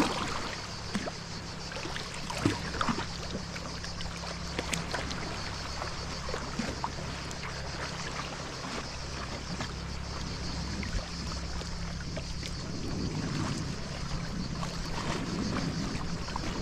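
Sea kayak being paddled with a Greenland paddle on calm sea: irregular splashes as the blade dips, and water trickling and dripping off it, over a steady low rumble.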